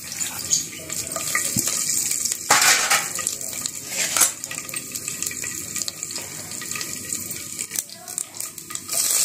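Hot oil sizzling in a pot as dried red chillies, split lentils and small seeds fry for a sambar tempering, with a few sharp crackles from the seeds. The sizzle grows louder near the end.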